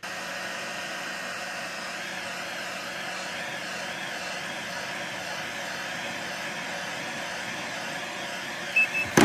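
Heat gun blowing steadily, a constant airy fan noise, as it heats a plastic speaker grille to soften the glue beneath. Near the end there are two short high beeps and a brief click.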